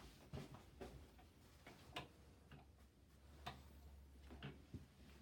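Near silence: room tone with a few faint, irregular clicks and taps.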